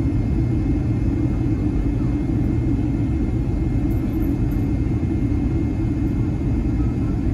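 Steady low roar inside the cabin of a Boeing 757-300 on approach, engine and airflow noise heard from a window seat beside the wing, with a faint steady high tone above it.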